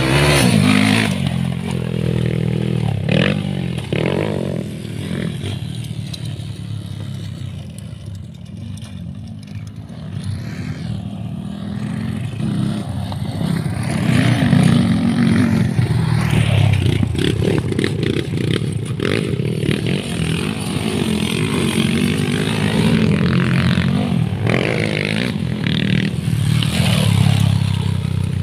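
Dirt-bike engine revving on a motocross track, its pitch rising and falling with the throttle. It fades away about eight seconds in and comes close and loud again from around fourteen seconds.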